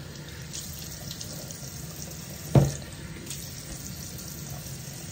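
Bathroom tap running steadily into a sink, with one sharp knock about two and a half seconds in.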